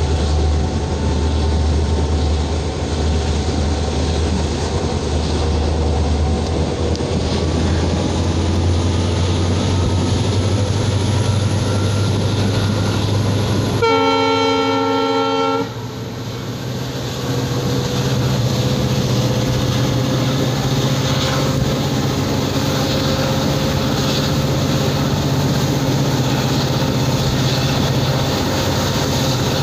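A train running at speed, heard from a coach hauled by a WDP4D diesel locomotive. A steady wind-and-rail rumble runs under the engine's low drone, and a faint whine slowly rises in pitch as the train gathers speed. About halfway through, the locomotive's horn sounds once for nearly two seconds.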